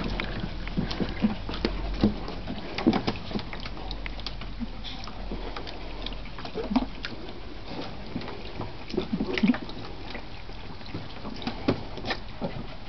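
Poodle puppies' paws splashing and pattering in shallow water in a plastic paddling pool: irregular small splashes and taps throughout.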